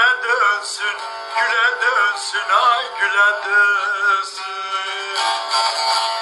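A man singing an aşık folk song over instrumental accompaniment, his voice wavering and bending in pitch. The singing stops about five seconds in and the instruments carry on.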